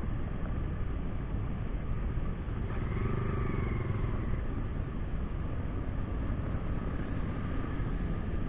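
Motorcycle riding along the road, its engine and road noise running steadily, with a brief change in engine pitch about three seconds in.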